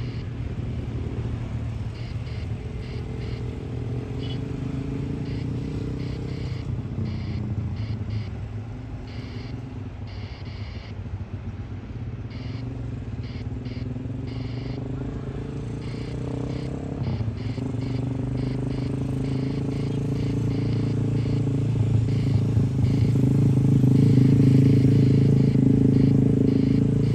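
Engines running with a low rumble whose pitch slowly rises and falls, growing louder over the last third.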